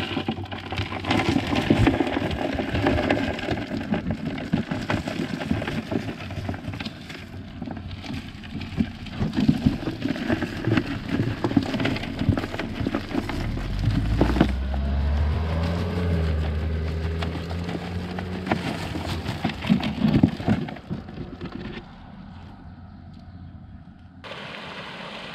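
Dry leaf litter crackling and rustling as it is raked back by hand to uncover worms. About halfway through, a low steady engine hum comes in for several seconds, then fades.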